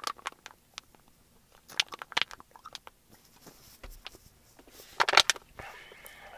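Thin plastic water bottle crackling and crinkling as it is squeezed by hand, in several short bursts: around the start, about two seconds in, and more loudly about five seconds in, followed by a softer rustle.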